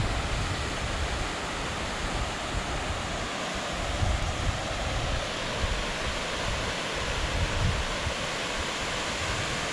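Steady rushing of a mountain stream and waterfalls in a gorge below, with wind buffeting the microphone in uneven low gusts.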